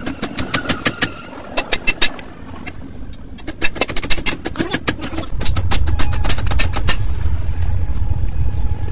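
A rapid run of sharp metallic clicks and clinks, pausing briefly and starting again, with a low steady rumble joining about five seconds in.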